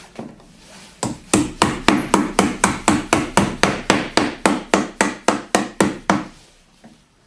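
Hammer tapping on a wooden board, about four quick blows a second, some twenty in all, starting about a second in and stopping a second before the end.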